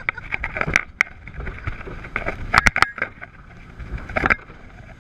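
A rigid-hull inflatable boat running fast on twin Yamaha 350 hp V8 four-stroke outboards, with wind buffeting the camera microphone. Many sharp, irregular knocks come as the hull slams over the waves, the loudest a pair about two and a half seconds in and another a little after four seconds.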